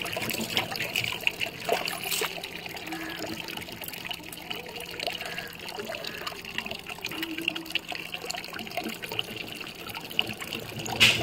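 Water trickling while wet, soapy skin is rubbed by hand, with a short louder noise near the end.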